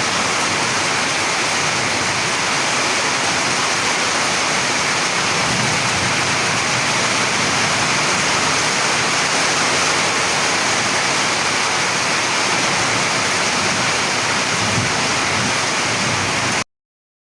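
Heavy rain falling, a steady dense hiss that cuts off suddenly near the end.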